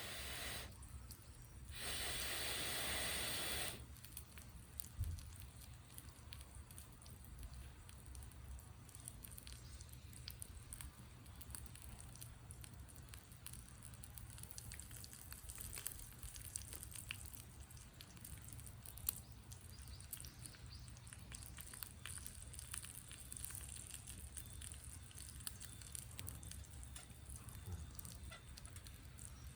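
Campfire in a fire pit crackling quietly, with scattered small pops. Two bursts of loud rushing hiss come in the first four seconds.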